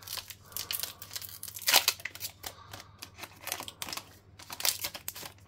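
Foil Pokémon TCG booster pack being torn open, the wrapper crinkling and ripping in irregular bursts, loudest about two seconds in.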